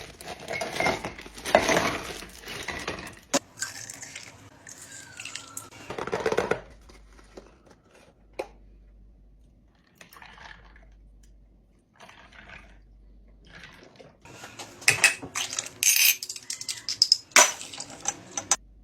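Drink-making sounds: glassware and utensils handled and clinking, with some liquid noise, ending in a quick run of sharp clinks.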